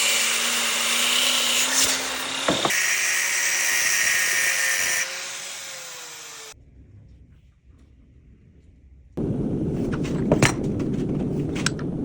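A power tool, a grinder working the steel of a railroad spike knife, running loudly and then winding down and fading out about five to six seconds in. After a quiet gap a different steady rushing noise starts, with sharp clicks.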